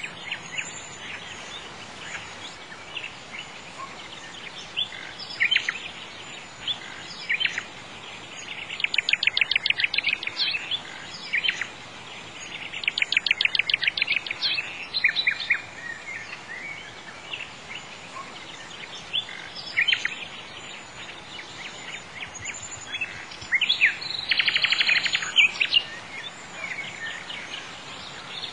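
Songbirds chirping and singing over a steady outdoor background hiss, with several bouts of rapid trills.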